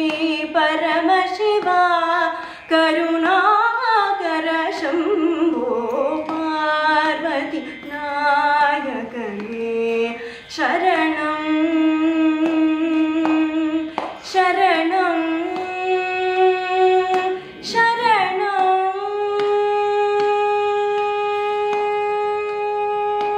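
A woman singing Carnatic music in raga Shanmukhapriya, ornamented phrases gliding and bending in pitch; for about the last four seconds a single long steady note is held.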